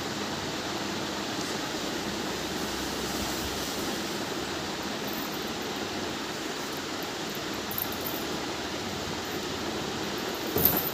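Steady, even rushing noise, with a brief knock about a second before the end.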